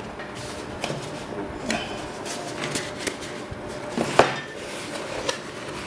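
A power supply's cardboard box and packaging being opened and handled: scattered clicks, knocks and rustles, with the loudest knock about four seconds in.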